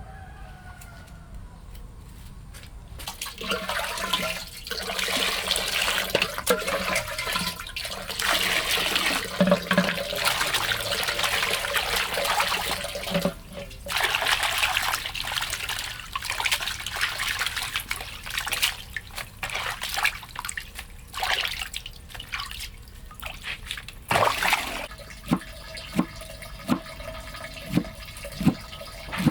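Water running and splashing, a rushing sound that comes and goes for about twenty seconds. Near the end it stops, and a steady hum with regular faint ticks takes over.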